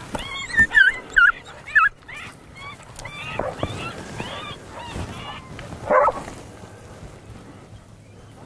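Canine yips and whines: a quick run of three loud, dipping yelps, then softer rising-and-falling whines, and a single sharper bark about six seconds in.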